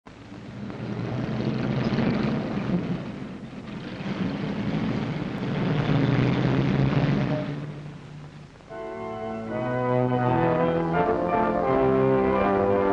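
Opening of a 1930s film soundtrack: two swells of rushing noise with low held tones under them, then an orchestra begins the opening title music about nine seconds in.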